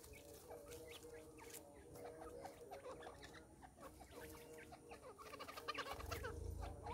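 Grey francolins giving soft, short clucking calls, several birds calling in scattered notes that come faster near the end. A low rumble is heard about a second before the end.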